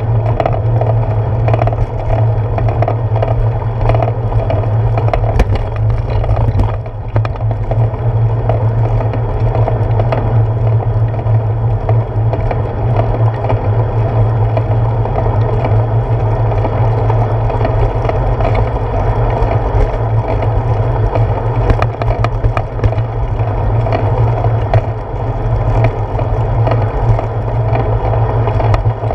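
Bicycle rolling steadily along a concrete sidewalk, heard through a handlebar-mounted GoPro: a continuous low rumble of tyre and handlebar vibration, with scattered small clicks and knocks from bumps and slab joints.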